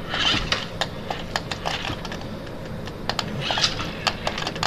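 Irregular small plastic clicks and rattles from a toy BattleBots robot and its remote being handled, with two brief hissy swells.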